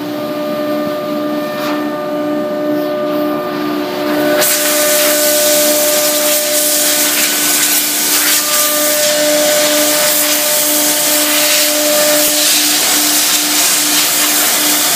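CNC router spindle running with a steady high whine while its cutter routes shapes out of a fibreboard sheet, over a hissing rush of air. About four seconds in, the hiss suddenly becomes louder and brighter, and it stays that way.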